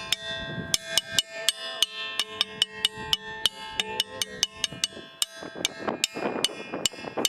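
A ringing rock being struck rapidly with a hand-held stone, several strikes a second. Each hit gives a clear, bell-like ring that carries on between the strikes, with the pitch changing now and then as different spots are hit.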